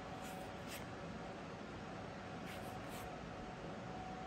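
Magic: The Gathering trading cards being thumbed through by hand: four faint swishes of cards sliding against each other, in two pairs about two seconds apart, over a faint steady hum.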